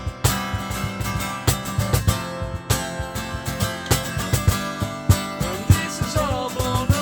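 Background music: a guitar band track with a steady drum beat.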